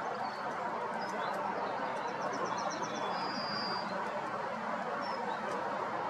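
Faint high bird chirps, including a quick run of about seven notes a little after two seconds and a longer note just after, over a steady background rush.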